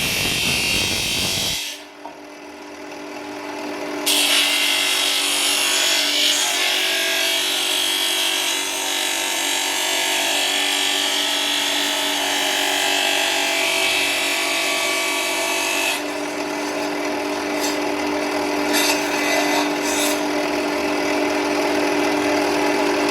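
Electric sander running with its abrasive pressed against the tiger figure being sanded down: a steady motor hum under a loud gritty hiss. The grinding drops away briefly about two seconds in and comes back strongly about two seconds later.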